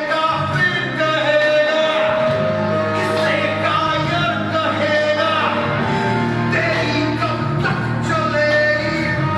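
Music with singing, with long held notes.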